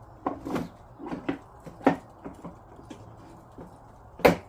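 Parts of a 12V ride-on kids car being pushed together by hand at a wheel: a series of knocks and clicks, several close together in the first two seconds and one loud knock near the end.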